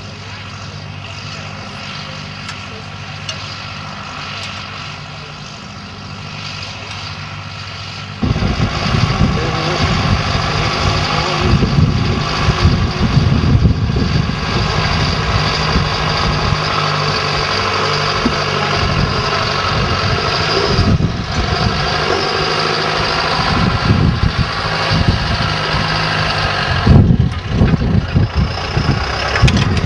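Tractor engine running steadily. About eight seconds in, the sound jumps suddenly louder into an uneven low rumble that carries on over the engine.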